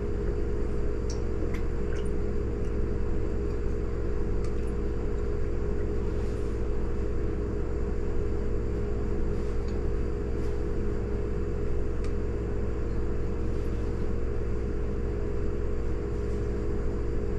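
A steady low hum with several even tones, unchanging throughout, with a few faint light ticks over it.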